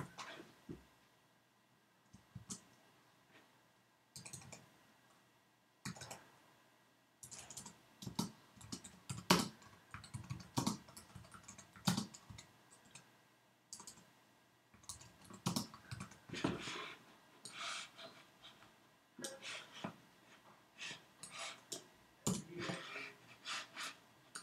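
Typing on a computer keyboard: irregular key clicks, a few scattered ones at first, then quick runs of keystrokes from about seven seconds in.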